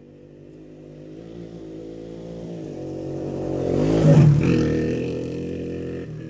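Motorcycle passing by: its engine grows louder as it approaches, is loudest about four seconds in, drops in pitch as it goes past, then fades away.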